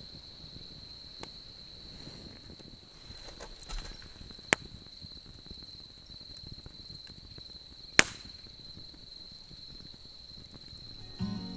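Autumn insects trilling steadily at a single high pitch, with three sharp pops from a crackling wood campfire, the loudest about eight seconds in.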